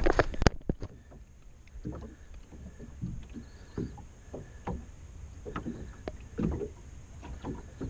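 Clatter of gear being handled in a small fishing boat, with a burst of loud sharp clicks in the first half-second, then scattered knocks and short rattles over a steady low rumble.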